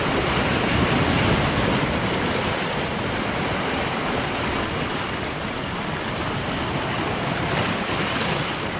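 Sea waves breaking and foaming over rocks close by: a steady rushing wash of surf.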